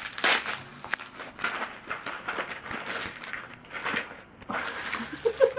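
Wrapping paper rustling, crinkling and tearing in irregular bursts as a small gift is unwrapped by hand.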